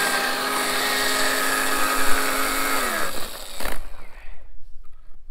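RYOBI One+ 18V cordless earth auger's electric motor running steadily under load while boring a post hole, then winding down about three seconds in as it is switched off.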